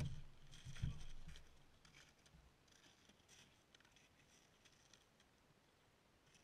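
Near silence, with two low, dull thumps in the first second and faint scattered crackling clicks after.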